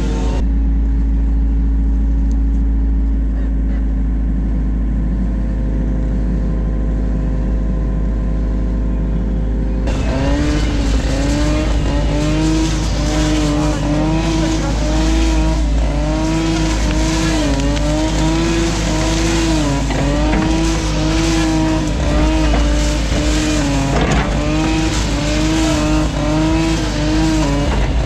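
New Holland Kobelco E50.2 mini excavator's diesel engine running steadily. About ten seconds in, after an abrupt change, it is working under hydraulic load, its pitch dipping and recovering about once a second as the boom and bucket move.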